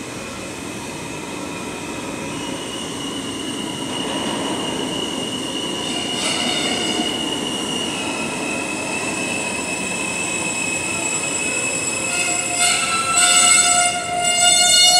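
New York City Subway R160 train approaching and pulling into the station. Its running noise builds steadily, with long high-pitched wheel and brake squeal that becomes loudest and shrillest in the last three seconds as the train enters the platform.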